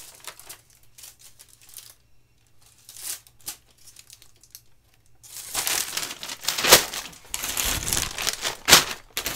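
Plastic packaging bags crinkling and rustling as cricket gloves are handled: only a few faint rustles at first, then loud, dense crinkling from about halfway, with a couple of sharp crackles.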